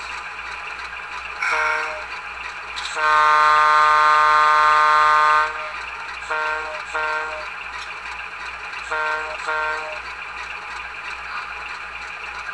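QSI Titan sound decoder in an HO-scale model diesel locomotive playing its ALCO 244 sound file through the model's small speaker: the engine idles steadily under a multi-chime air horn that gives a short toot, a long blast of about two and a half seconds, then two pairs of short toots.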